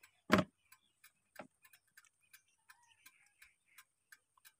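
Faint, regular ticking, about three sharp ticks a second, with a louder single knock just after the start and a weaker one about a second later.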